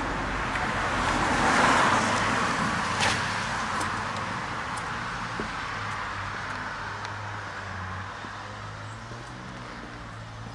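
Vehicle noise from road traffic, swelling about two seconds in and then fading slowly away over a low steady hum.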